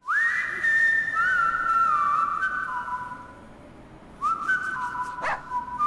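A person whistling a slow tune of long held notes with small slides between them. The whistling fades down in the middle and comes back about four seconds in, with a few short clicks near the end.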